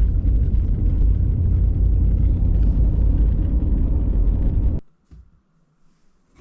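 Steady low rumble of a car on the move, road and engine noise, which cuts off abruptly about five seconds in and is followed by near silence.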